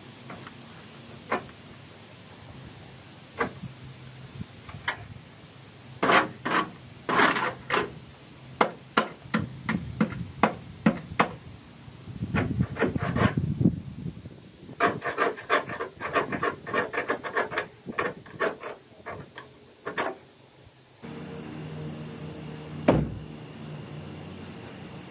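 Hand scraper scraping the windshield frame of a 1971 GMC P10 camper van, cleaning it down for new glass and rubber: runs of short, quick strokes with pauses between them, stopping about 20 seconds in.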